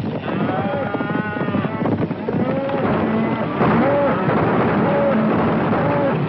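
A herd of cattle being driven at a run: a steady rumble of hooves, with riders' shouts and cattle bellowing over it. Short calls repeat about once a second in the second half.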